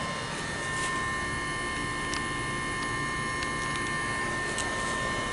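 Outdoor HVAC condensing unit with an LG scroll compressor running: a steady hum and fan rush with a few steady whining tones.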